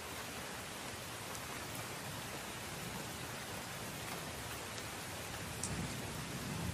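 Steady rain sound, an even hiss with a few faint drop-like ticks, swelling slightly in the low end near the end.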